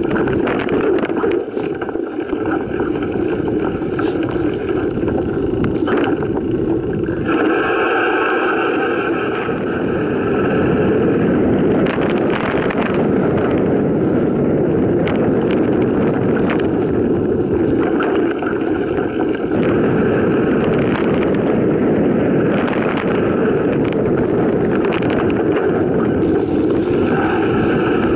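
Mountain bike descending a dirt forest trail, heard from a camera on the bike or rider: a steady, loud rumble of tyres on dirt and rushing air, with frequent rattles and knocks from the bike over bumps and roots.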